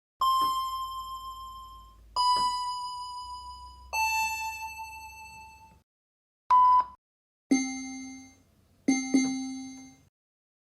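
A series of electronic computer beep and chime sound effects: three ringing chimes, each a step lower in pitch than the last and fading out over about two seconds, then a short steady beep that cuts off abruptly, then three lower chimes, the last two in quick succession.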